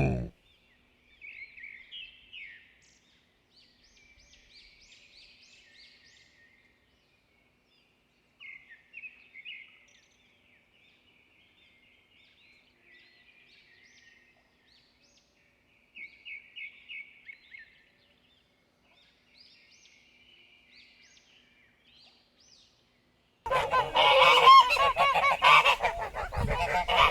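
Geese honking, loud and dense in the last few seconds. Before that there are only faint, short, high bird calls now and then.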